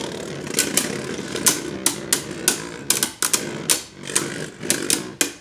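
Two Beyblade Burst spinning tops, Wyvern and Ragnarok, whirring in a plastic Beyblade stadium, with sharp clacks a few times a second at uneven spacing as they strike each other and the stadium wall.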